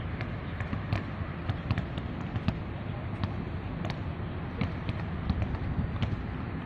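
Basketballs bouncing on a hard court: scattered, irregular thuds over a steady background noise.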